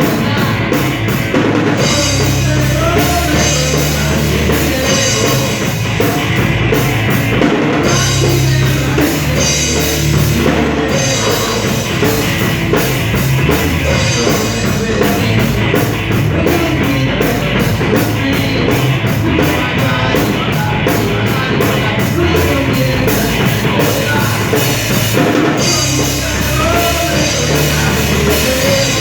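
Loud rock music with a full drum kit, bass and guitars, played at a steady beat.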